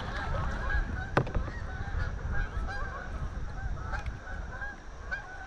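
A flock of Canada geese honking in flight, many calls overlapping continuously, over a steady low rumble.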